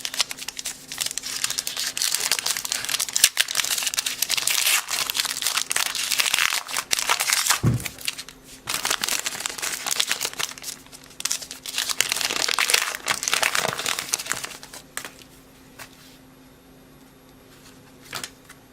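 A baseball card pack's wrapper being crinkled and torn open: dense crackling for about fifteen seconds, with a soft thump about eight seconds in, stopping with only a few light clicks near the end.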